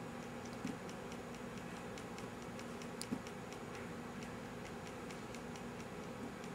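Faint, rapid, even ticking at about five ticks a second over a steady low hum, with a louder knock about 3 seconds in.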